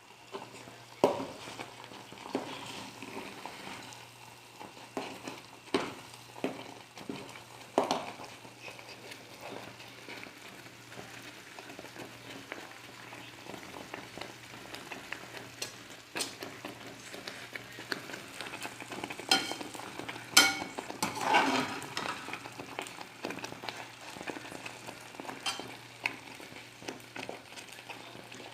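A pot of angu, cornmeal porridge, cooking while it is stirred with a spoon: a steady hiss from the pot with scattered knocks of the spoon against the pot, the loudest about 20 seconds in.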